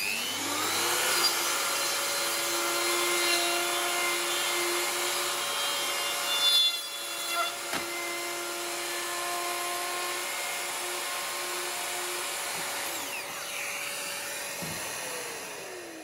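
Festool OF 1400 plunge router running at full speed, its bit cutting a deeper pass through a wooden template as the copy ring guides it round to form a 40 mm hole. There is a brief break in the cutting about six and a half seconds in. Near the end the motor is switched off and its whine falls away as it spins down.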